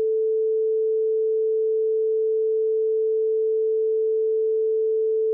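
Steady 440 Hz sine test tone (concert A) at a constant level, from a hi-fi test record, played in the left channel to check a stereo system's crosstalk.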